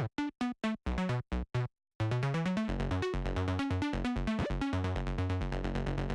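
Electronic synthesizer music: short, separate staccato notes with dead silence between them for about two seconds, then a continuous track with a steady beat.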